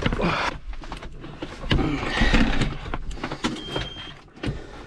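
Knocks, clunks and rustling as someone gets into a diesel tractor's cab before starting it, with one short steady beep about three and a half seconds in.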